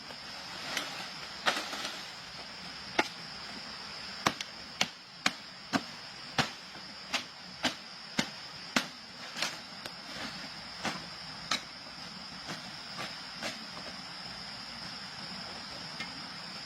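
A series of sharp knocks at uneven intervals, about one to two a second, thinning out near the end, over a steady high-pitched hiss.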